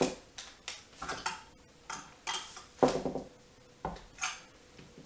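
A metal screwdriver clinking against a small metal eye hook as it is used to lever the hook round into a wooden rung: about a dozen light, irregular metallic clicks, the loudest a little under three seconds in.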